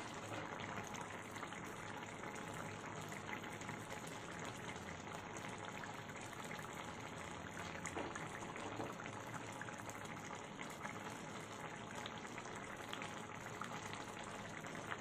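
Prawn curry simmering in an iron kadai on a gas burner: a steady bubbling with small scattered pops, the gravy thickened and the curry close to done.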